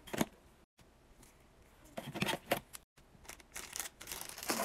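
Clear plastic bag crinkling and rustling in a gloved hand, in short bursts: a brief rustle just after the start, a few around two seconds in, and closer-set crinkling in the last second and a half.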